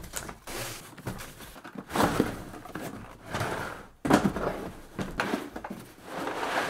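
A hard plastic tool case is handled on a workbench: it slides out of its cardboard box with rustling and scraping, knocks down on the bench about halfway through, and clicks and clunks as its lid is unlatched and lifted open.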